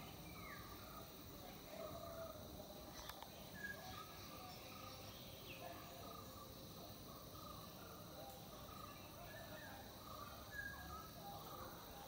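Faint natural ambience: many short, scattered chirps from small birds, with a light click about three seconds in and another around eight seconds.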